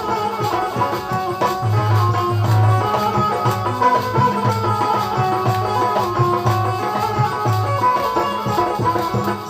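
Instrumental break in Bundeli rai folk music: low hand-drum beats repeating about twice a second under a held melody, with rattling percussion.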